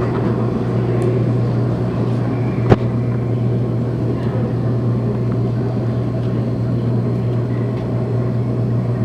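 Ice hockey rink sound during play: a steady low hum over a constant noisy background, with one sharp knock from the play about two and a half seconds in.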